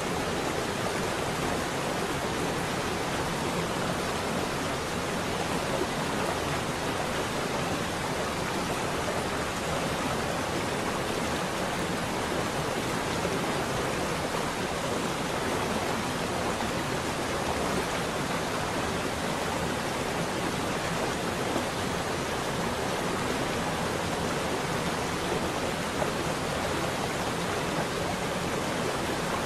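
Steady, even rushing noise that does not change: the masking bed of a subliminal track, under which voiced affirmations are layered.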